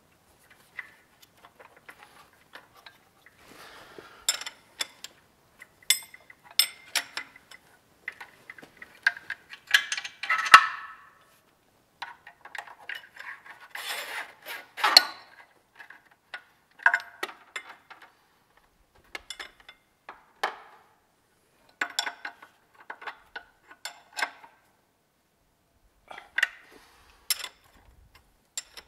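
Metal hand tools and fittings clinking and rattling against the engine as parts are fitted and tightened. The sound comes in short, scattered clusters of sharp clicks, loudest about ten and fifteen seconds in.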